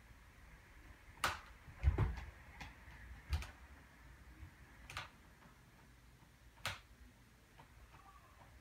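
Bare feet knocking and thudding on a low padded practice balance beam as a gymnast steps and lands along it: about six separate knocks spread over several seconds, the loudest a low thud about two seconds in.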